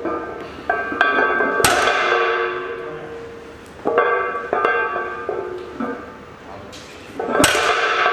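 Background music with layered melodic notes, broken twice by a loud crash with a long ringing tail, about one and a half seconds in and again near the end.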